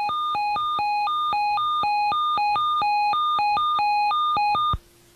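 Electronic alert tone switching quickly back and forth between a low and a high beep in an uneven pattern, cutting off suddenly near the end: an alert signal ahead of an Emergency Alert System message.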